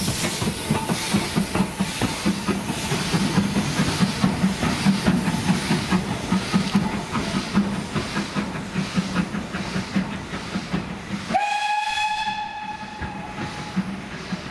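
Steam locomotive, a BR Standard Class 4MT tank engine, working through the station with a steady rhythmic chuff and hiss of steam. About eleven seconds in, its steam whistle gives one long steady blast of about two seconds.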